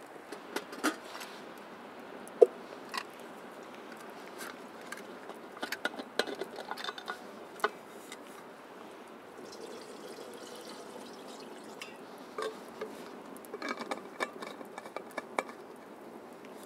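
Wood campfire crackling with scattered sharp pops, alongside small clinks and knocks of a steel vacuum flask being handled and a brief pour of liquid from it.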